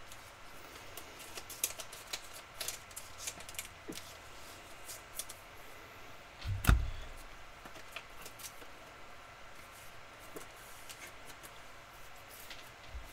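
Faint scattered clicks and taps of items being handled on a tabletop, with one soft thump about halfway through.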